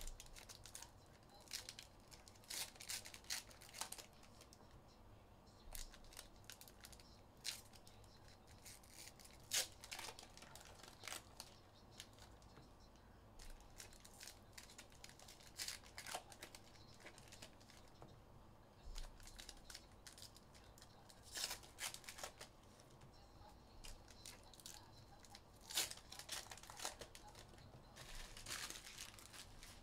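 Trading card packaging being torn open and crinkled by hand, in short, irregular rips and rustles with quiet gaps between them.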